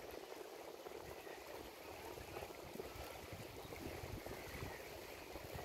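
Faint, steady flowing and lapping of river water from the Padma River's current.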